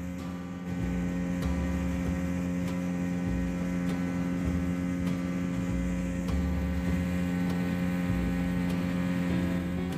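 Small fibreglass boat's engine running at a steady pitch while the boat is under way, with an uneven low rumble beneath.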